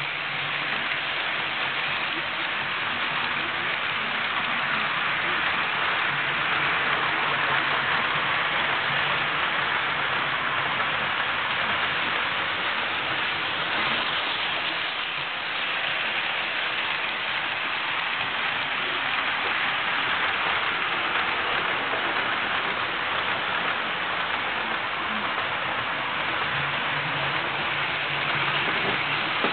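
Tyco and IHC HO-scale model trains running on the layout's track: a steady, even running noise of wheels on rail and small motors. A faint low hum comes up near the end.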